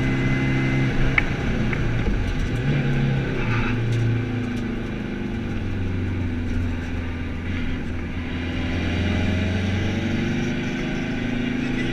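Skoda Fabia TDI rally car's turbodiesel engine under load, heard from inside the stripped, caged cabin. Its pitch drops about four seconds in as the car slows for a bend and holds low, then rises again as it accelerates out near the end.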